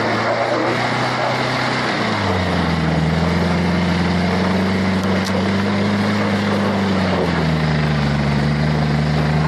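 Vehicle engine pulling across a wet grass field in two-wheel drive, the tyre spinning and throwing dirt, over a steady rush of tyre and wind noise. The engine pitch drops about two seconds in, climbs a little, and drops again near the end as the driver eases off.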